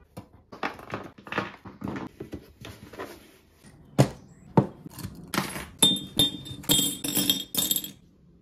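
Small objects being handled and put down: a string of light taps and knocks, two sharp clunks about four seconds in as a glass-and-brass jewellery box is handled on a table, then metal jewellery and hair clips clinking against the glass with bright ringing near the end.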